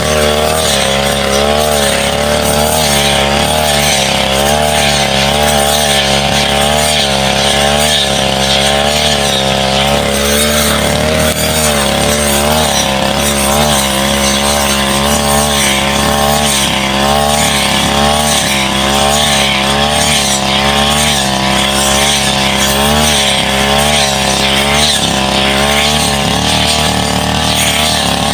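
Brush cutter engine running hard as it cuts through saplings, its pitch rising and dipping continuously as the blade meets the wood.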